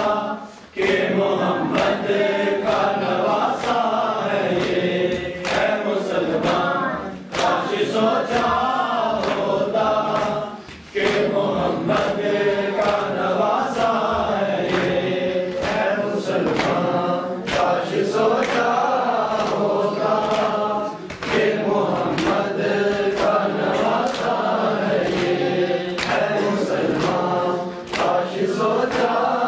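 A group of men chanting a Shia mourning lament (noha) in unison, line after line with short breaks between them. Steady rhythmic hand strikes on their chests (matam) mark the beat beneath the chant.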